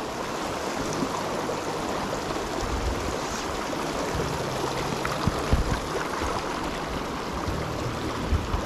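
Stream water flowing and rushing steadily, with a few short low thumps about three, five and eight seconds in.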